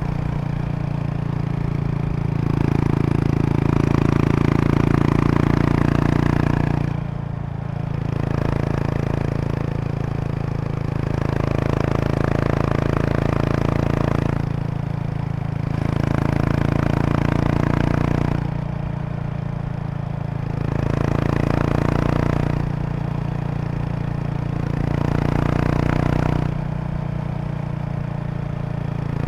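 2003 Kawasaki Estrella RS's 250 cc air-cooled single-cylinder engine running through a Yamato aftermarket muffler while riding, the exhaust note swelling louder five times as the throttle opens and easing off in between. A light buzzing rattle runs along with it: the seat bag's stiffening board resonating with the bike's vibration.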